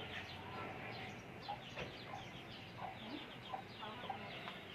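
Aseel chicks peeping, many short, falling chirps in quick succession, with a few lower clucks from the breeder hens.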